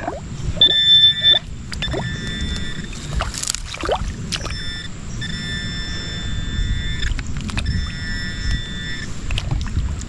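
Metal detector sounding a steady, high electronic target tone that cuts in and out in stretches as it is swept over a buried target. Under it are the low sloshing of creek water and the short scrapes of digging in gravel and clay.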